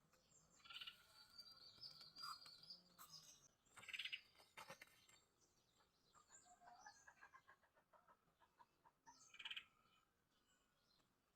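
Faint high-pitched chirps and twittering calls, coming in several short bursts with quiet gaps between.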